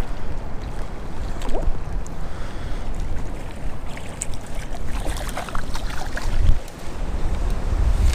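Wind buffeting the microphone: a low, gusting rumble that rises and falls, easing briefly about six and a half seconds in.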